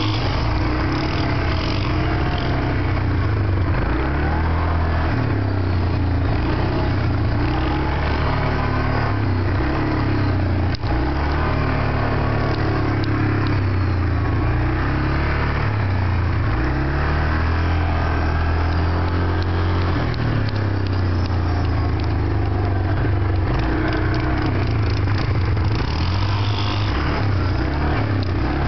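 Yamaha 450 sport quad's single-cylinder four-stroke engine running hard under throttle, its note rising and falling again and again as it revs up, shifts gears and backs off.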